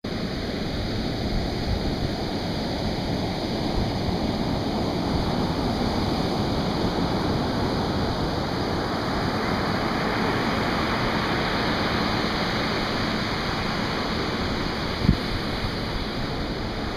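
Atlantic surf breaking and washing up a sandy beach: a steady rush of waves and foam, with one brief thump about fifteen seconds in.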